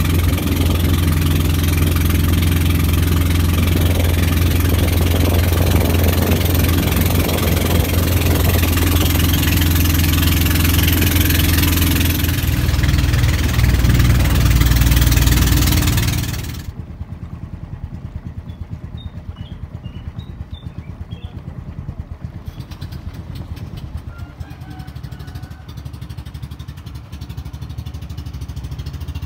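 Outrigger boat engines: one runs loud and steady, then cuts out suddenly a little past halfway. A quieter boat engine keeps running after it with a steady putter.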